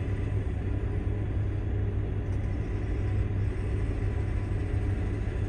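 Diesel engine of a John Deere 644E wheel loader running steadily under load as it pushes dirt, a constant low drone.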